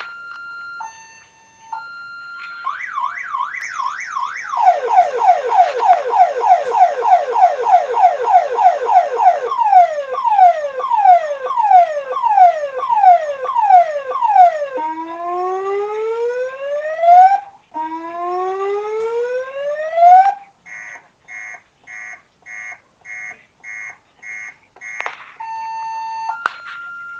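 Electronic ambulance siren stepping through its tone patterns: first a quick warble, then rapid falling sweeps at about four a second, which slow to longer falling sweeps. Two long rising wails follow, then a string of short beeps about twice a second near the end.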